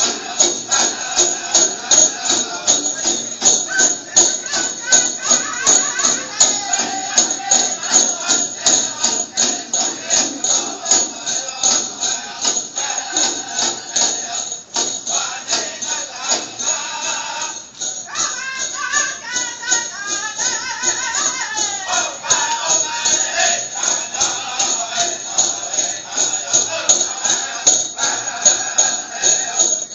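Powwow song for a Prairie Chicken Dance: a steady, fast drum beat with singing over it, and bells jingling in time. The singing is clearest from about 18 to 23 seconds in.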